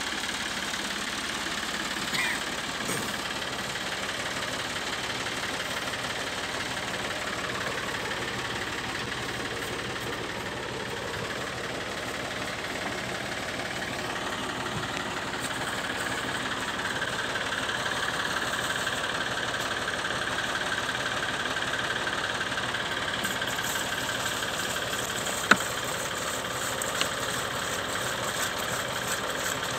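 A diesel engine idles steadily with an even knocking beat. A single sharp click sounds near the end.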